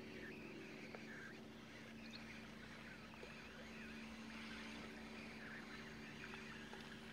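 Faint outdoor ambience: a steady low hum, with small birds chirping over it.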